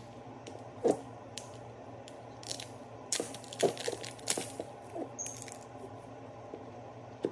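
Thin plastic seal crinkling and crackling as it is torn and peeled off the lid of a cardboard ice cream pint, in a string of separate sharp crackles, the loudest about a second in and again around the middle.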